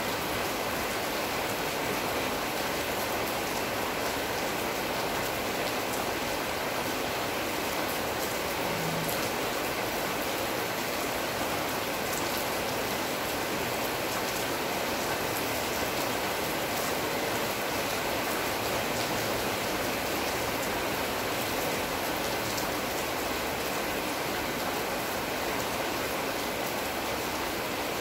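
Steady rain falling on a leafy tree, with faint scattered drop ticks through the even hiss.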